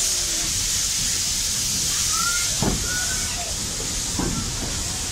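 Steam hissing loudly and steadily from the 1919 Hawthorn Leslie tank engine as it starts away, the cylinder drain cocks open, with two heavier chuffs about a second and a half apart.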